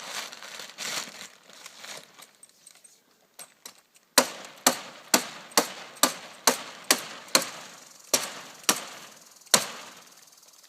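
Plastic tarp rustling, then a run of about a dozen sharp strikes, roughly two a second, as the tarp is stapled onto the 2x4 teepee poles.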